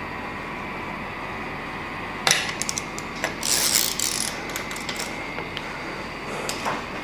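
Hand tools working on engine cylinder head nuts: a sharp metallic click about two seconds in, then a run of quick ratchet-like clicks with a short rustle in the middle, and a few more clicks near the end.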